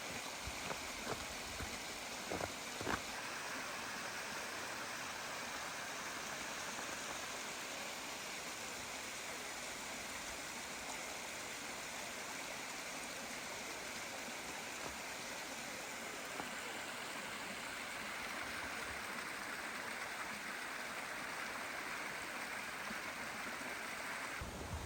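A mountain stream running steadily over rocks, with a few sharp clicks in the first three seconds.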